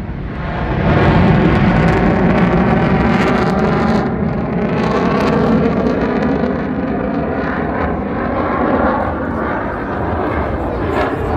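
F-16 fighter jet flying over, its jet engine a loud, steady roar that swells about a second in and holds.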